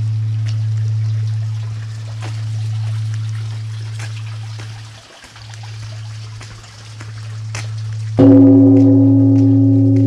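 Large bronze Korean temple bell humming low as an earlier stroke dies away, the hum slowly swelling and fading in beats. About eight seconds in it is struck again with its wooden log striker and rings out loudly with several tones over the hum.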